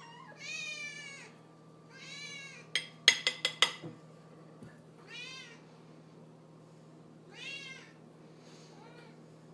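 Domestic cat meowing four times, a couple of seconds apart, each meow rising and falling in pitch: begging for food while it is being dished up. A quick run of sharp clicks comes about three seconds in.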